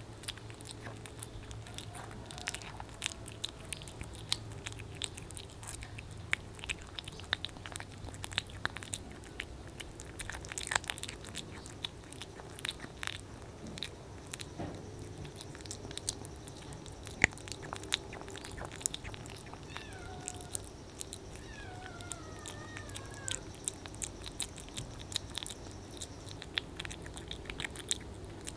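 A kitten eating soft wet cat food close to the microphone: quick, irregular wet chewing and smacking clicks, a few of them louder than the rest.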